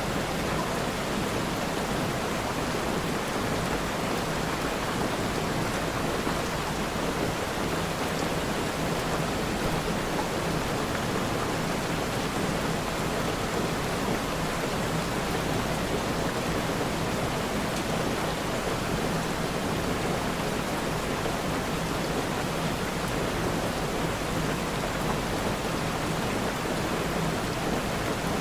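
Steady rainfall: an even, unbroken hiss of rain at a constant level.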